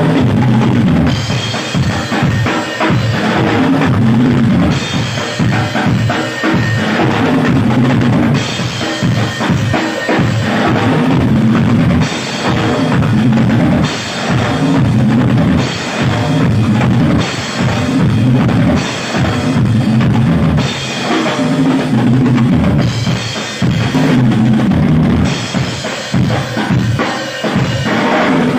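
Drum kit played live in dense, fast patterns on the drums and bass drum, with cymbals coming in and dropping out every second or two.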